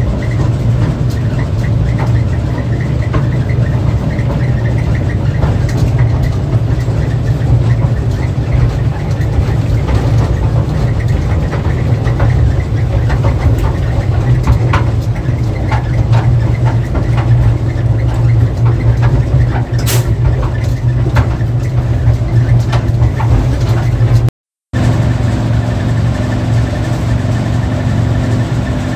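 Riding inside a slow-moving train: a steady engine drone with frequent clicks and rattles from the wheels on the track.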